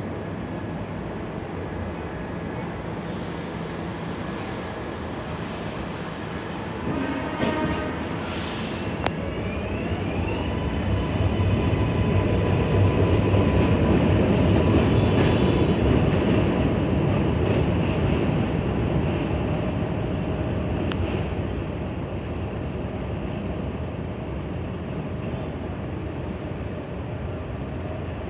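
New York City subway train running through the station: a steady rumble of wheels on rail that swells to its loudest midway and then eases off. About ten seconds in, a rising electric motor whine comes in as the train's propulsion winds up.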